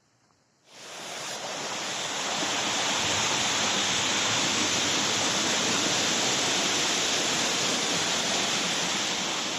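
A stream rushing: a dense, steady hiss of running water that swells in about a second in and then holds even.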